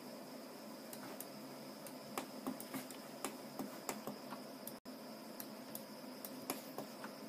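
Faint, irregular clicking of a computer mouse and keyboard, starting about a second in, over a steady background hum with a thin high tone.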